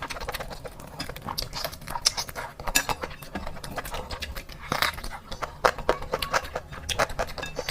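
Close-miked eating sounds: chewing and mouth smacking, a quick irregular run of wet clicks, with a spoon or fork clinking now and then against a dish.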